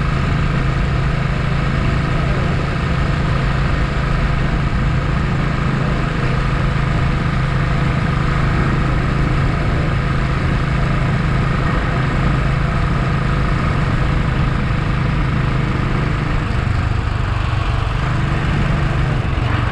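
Motorcycle engine running steadily at cruising speed, over a constant rush of wind and road noise. The engine note drops slightly near the end.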